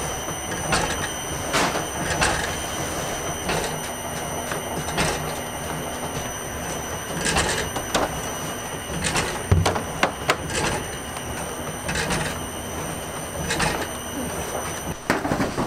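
Bakery machinery running steadily with a high whine, broken by repeated knocks and clicks about every second. A burst of clatter near the end, as plastic bread crates are handled.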